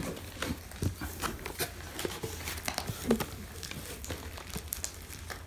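A cardboard box being handled and its flaps and inserts opened: scattered light rustling and scraping with small knocks, over a steady low hum.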